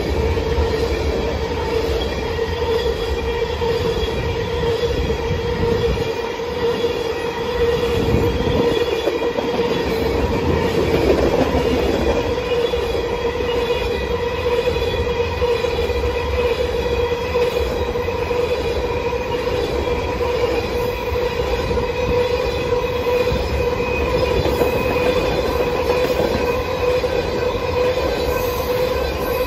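Empty railway tank cars of a long oil train rolling past close by: a steady rumble of steel wheels on the rails, with a continuous high whine of wheels squealing over it.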